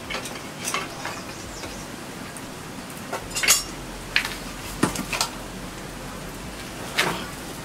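Scattered wooden knocks and clatters of split pine firewood and kindling being handled at a wood fire, the loudest about three and a half seconds in.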